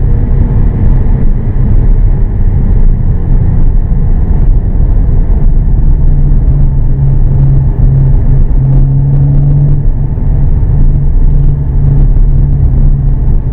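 Volkswagen Passat heard from inside the cabin while driving: a steady low rumble of engine, exhaust and road noise. A low steady exhaust drone comes in about halfway through and holds.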